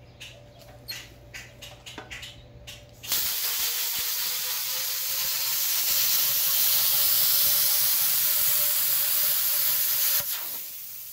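Plasma cutter cutting through the steel wall of a pipe: a steady hiss of the arc and air that starts suddenly about three seconds in and stops near the end, after a few light clicks as the torch is set on the cut line.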